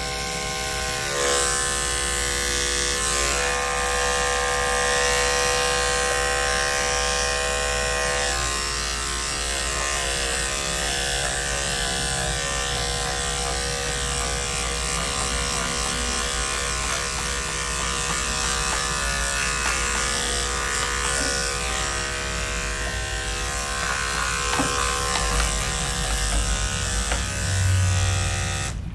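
Electric dog grooming clipper running with a steady buzz as its blade is pushed through raw chicken skin. Its wide-toothed blade pulls the skin into the teeth and slices it.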